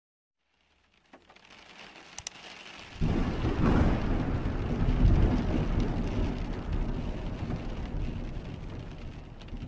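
Channel logo sound effect: a hiss that builds with a couple of sharp clicks, then a sudden deep rumble like thunder about three seconds in, slowly fading into a steady rain-like hiss.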